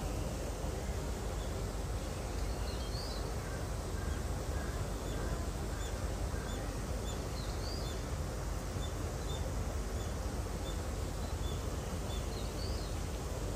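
Outdoor ambience: a steady low rumble of background noise, with small birds chirping, a run of short high chirps about twice a second through the middle and three brief rising calls.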